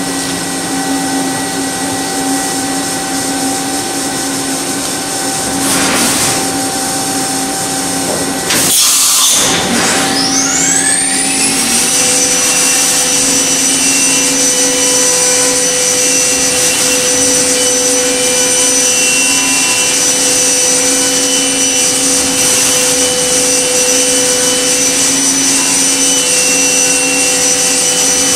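Okuma MB-5000HII horizontal machining center running with a steady hum and several steady tones. A brief rush of hiss comes about nine seconds in; the spindle then winds up with a rising whine and holds a steady high whine at speed.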